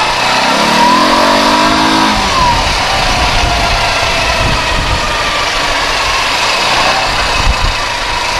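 K-Lion Santa 200 quad bike's engine pulling away, its pitch rising from about half a second in and easing off after about two seconds, then running on steadily under a low rumble.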